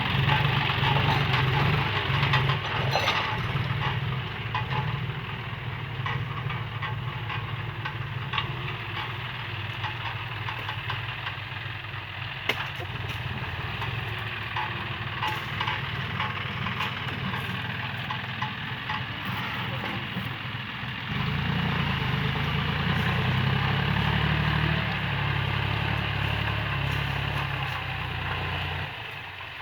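A John Deere 5045D tractor's three-cylinder diesel engine without a turbo, running steadily at idle. It is louder at first, drops a little a few seconds in, and grows louder again about two-thirds of the way through.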